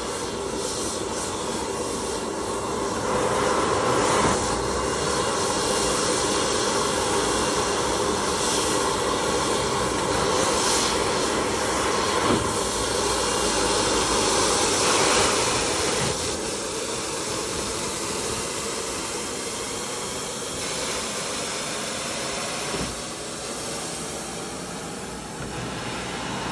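Steady jet engine noise on an airport ramp, swelling louder for a stretch in the middle and easing off after that.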